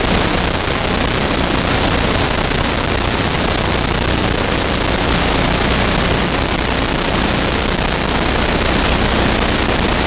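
Steady loud hiss of static with a faint low hum beneath it, unchanging throughout, with no distinct sounds standing out from it.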